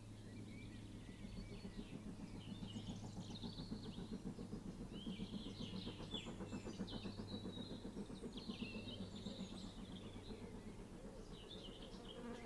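Songbirds chirping and singing over a low, rapidly pulsing mechanical rumble that builds towards the middle and eases off near the end.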